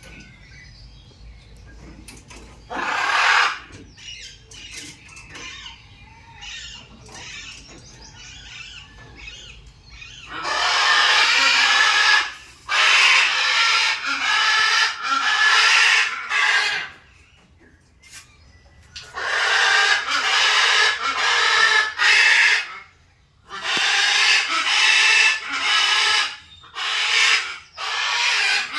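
Macaws screeching: harsh, loud calls come in bursts of a second or two, again and again, from about ten seconds in, after a stretch of softer scattered calls.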